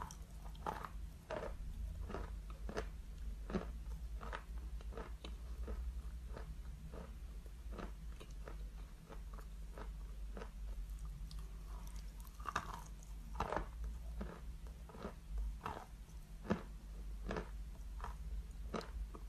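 A person biting and chewing a piece of chalk close to the microphone: a steady run of dry crunches, a little over one a second.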